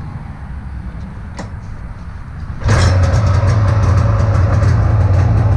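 A 1994 Polaris Indy 440 snowmobile's two-stroke engine starting: it catches suddenly a little under three seconds in and runs on at a steady idle.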